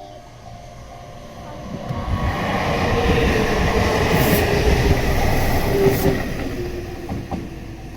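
Meitetsu electric train passing close by: the rumble of wheels on the rails swells from about two seconds in, peaks midway and fades near the end.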